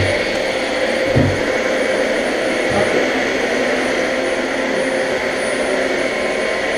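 Vacuum cleaner running with a steady whine and rushing air, with a few low knocks in the first three seconds as the vacuum is moved about.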